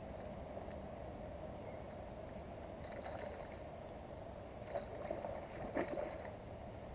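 Steady rush of river water, with a few short splashes about five to six seconds in as a hooked carp is played toward the bank.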